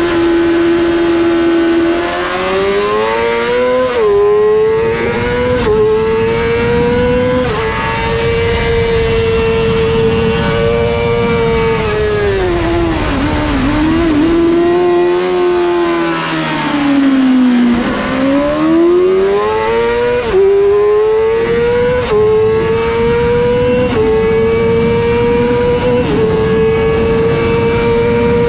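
2007 Yamaha YZF-R6's inline-four engine at high revs on a track lap. It climbs through several quick upshifts and holds high along a straight, then winds down through the downshifts to its lowest revs about two-thirds in, before pulling up through the gears again.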